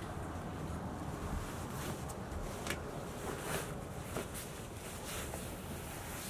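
Steady low outdoor background rumble, with a few faint short clicks.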